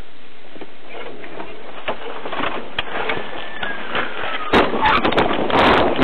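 Steady hiss of a patrol car's recorded audio with a few clicks, then about four and a half seconds in a sudden jump to loud wind noise rushing on the microphone, with scuffing footsteps, as the deputy goes out on foot.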